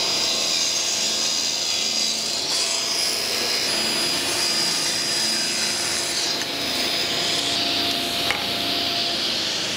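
Table saw running and ripping a strip of wood, blade cutting steadily, with the workshop dust extraction drawing air through the saw's ports. A steady noise with a few thin whining tones through it.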